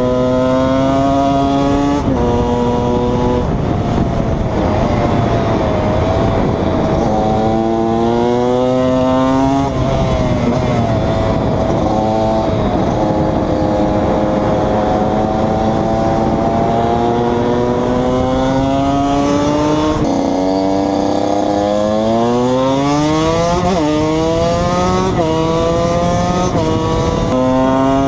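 KTM 125 EXC's single-cylinder two-stroke engine under way, revving up through the gears with sudden pitch drops at each upshift. It holds a steady cruise for several seconds in the middle, then revs hard through quick shifts again near the end.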